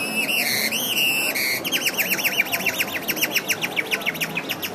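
Bird-like whistled calls: a few drawn-out whistled notes, then a fast, even run of short downward-sweeping chirps at about eight or nine a second.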